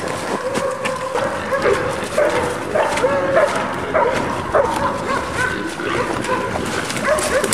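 Dogs barking and baying over and over in short, bending calls, over the crunch of running footsteps through dry leaves.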